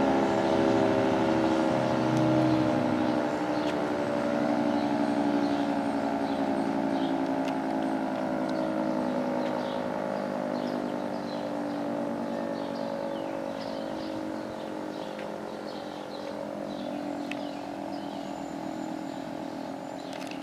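Federal Signal 3T22B outdoor warning siren winding down, its several tones sliding slowly lower in pitch as it fades. Birds chirp over it.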